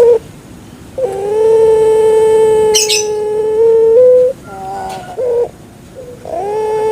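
Puter pelung dove (Streptopelia risoria) cooing in long, drawn-out notes. One coo is held steady for about three seconds, then comes a short note, then another long coo starts near the end. A brief sharp rasp sounds about three seconds in.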